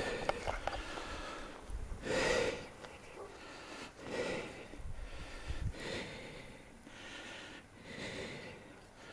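A person breathing heavily and loudly, one deep, rasping breath about every two seconds, the loudest about two seconds in: out of breath from running.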